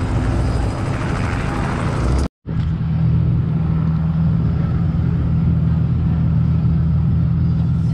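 Steady low engine hum from a motor vehicle running, cut off completely for a moment about two seconds in, then carrying on louder and just as steady.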